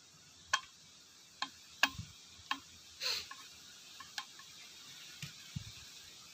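Irregular sharp clicks and light taps from engine parts being handled, about eight in all, with a short scrape about three seconds in.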